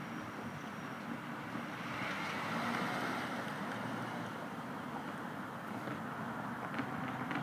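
Road traffic noise, with a car driving past close by and growing louder about two to three seconds in.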